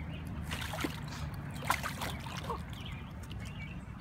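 Shallow water splashing and trickling as a hooked carp flops at the edge of the bank, a few short splashes, the sharpest a little before halfway, over a steady low rumble.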